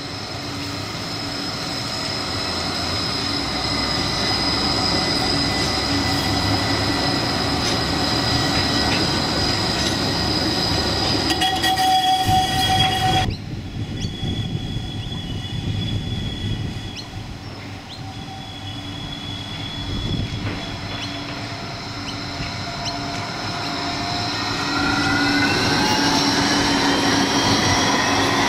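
Gold Coast G:link light-rail trams running past, a steady high electric whine over wheel-on-rail noise. After a sudden break about 13 seconds in, a second tram comes close and its whine rises in pitch near the end.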